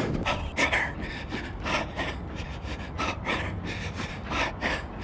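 A man panting hard through his mouth, a quick, even run of heavy breaths about two a second, the breathing of a runner after hard exertion.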